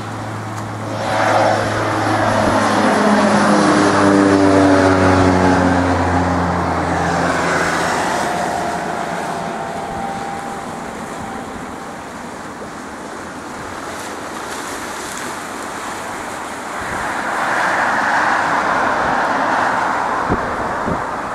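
Twin turbofan engines of a Cessna Citation CJ3+ business jet on landing approach: a whine of several tones that fall in pitch over the first few seconds, then a steady rushing jet noise that swells again near the end as the jet lands.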